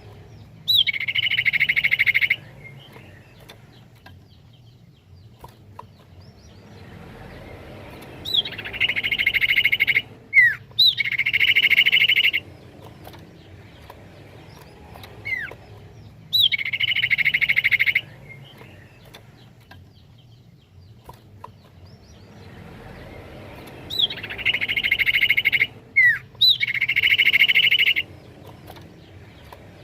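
Common iora (cipoh) calling: phrases of a quick sweeping whistle followed by a harsh trilled note about a second and a half long, repeated six times in pairs or singly, with short single sweeping whistles between them.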